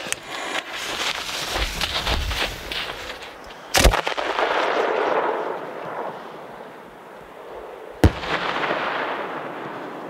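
Hand-lit aerial firework display shell. Its fuse sputters for about three seconds, then the lift charge fires it from the mortar with a sharp bang a little under four seconds in. A hiss follows as it climbs, and about four seconds later it bursts with a second sharp bang that echoes away.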